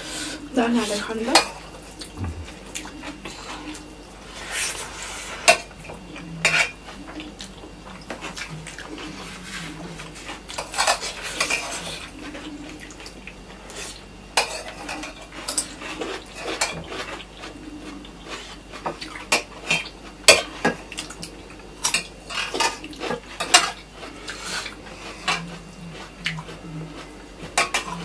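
A spoon clinking and scraping against metal dinner plates while rice and dal are mixed and scooped up by hand: a string of irregular clicks and scrapes.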